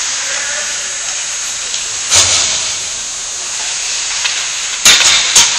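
Steady hiss of an indoor ice rink during pickup hockey, broken by a sharp knock about two seconds in and a quick run of three louder knocks near the end, from pucks and sticks in play.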